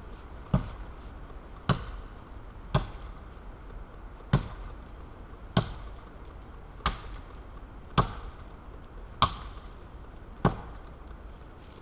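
Wetterlings Forest Axe chopping into a thin standing tree trunk: nine sharp blows at an even pace, about one every second and a quarter.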